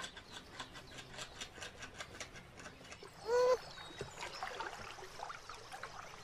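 A beaver gnawing a stick, a rapid run of faint clicking bites at about five a second. About three seconds in, a short loud animal call with a falling end.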